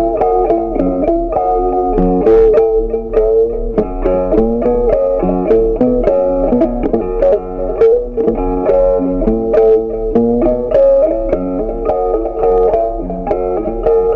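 Background music: a plucked-string instrumental tune of quick, changing notes.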